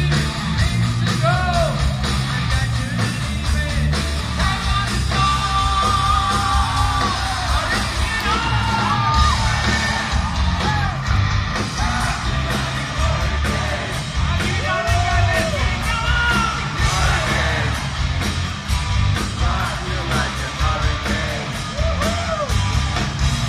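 Hard rock band playing live, with drums, bass and electric guitar under sung and yelled vocals. It is heard from the audience in a large concert hall, loud and boomy through a phone microphone.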